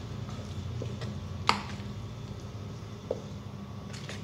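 A hand mixing moist ground rendang spice paste in a plastic bowl: soft squishing, with a sharp tap against the bowl about a second and a half in and a smaller one about three seconds in, over a low steady hum.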